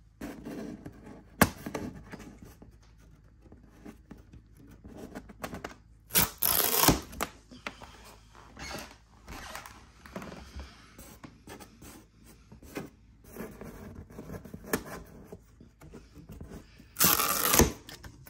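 Hands handling a large cardboard TV box and its plastic strapping bands: rubbing and scratching on cardboard, a sharp click about a second and a half in, and two louder scrapes lasting under a second, about six seconds in and near the end.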